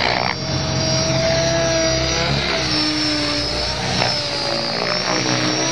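Electric RC helicopter (Mikado Logo XXtreme) in flight: the motor and rotor blades give a steady whine whose pitch shifts up and down as it manoeuvres.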